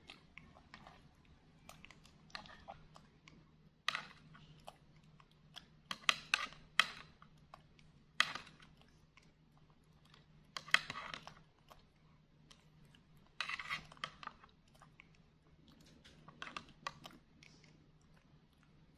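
A monkey feeding itself yogurt: a plastic spoon clicking and scraping against a plastic yogurt cup and ceramic bowl in scattered sharp bursts, with chewing in between.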